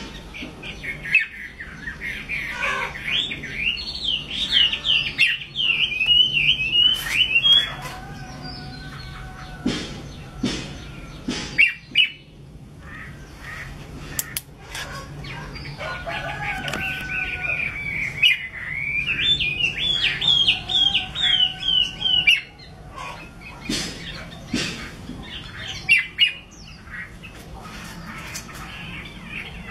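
Chinese hwamei singing two long phrases of rapid, rising and falling whistled notes, with sharp clicks in the pauses between them.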